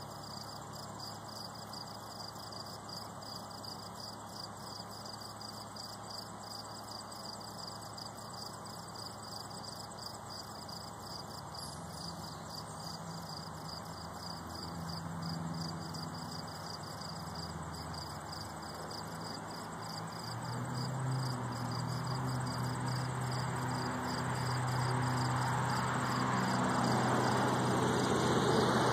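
Insects chirping in a steady, fast-pulsing high trill. From about halfway through, a low hum rises and grows gradually louder toward the end.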